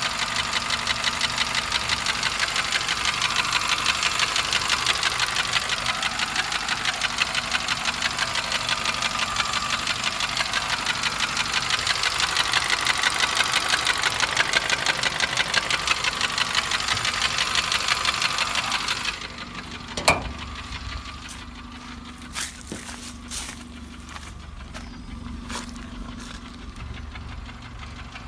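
An engine running with an even, rapid pulsing beat, which drops away suddenly about 19 seconds in; a sharp click follows, then a quieter stretch with a few more clicks and a low hum.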